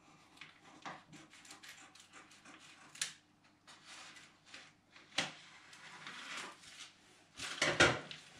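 Scissors snipping through plastic bag film, with the plastic crinkling and rustling as it is handled; the loudest crinkling comes near the end as a cut bag is picked up.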